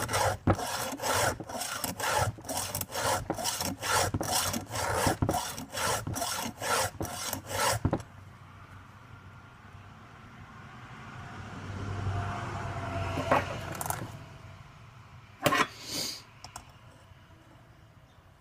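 A file rasping across a chainsaw chain's cutter teeth in a quick run of short strokes, about two or three a second, for some eight seconds; then quieter, with two more short strokes later on.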